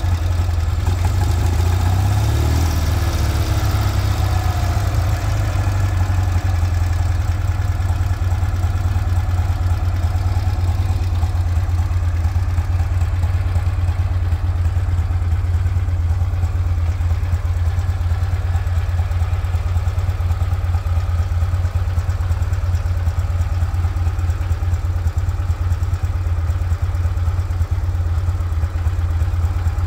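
A 1967 BMW R69S's air-cooled flat-twin engine idling steadily after a warm start.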